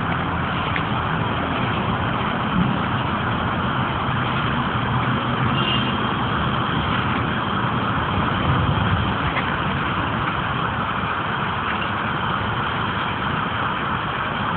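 Steady engine and road noise of a car on the move, a low hum under an even rush.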